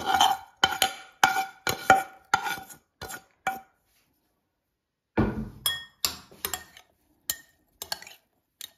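A metal spoon knocking and scraping mushrooms out of a frying pan into a glass bowl, about ten quick taps with a ringing after each. After a pause of about a second and a half comes a thump, then the spoon clinking against the glass bowl as the couscous is stirred.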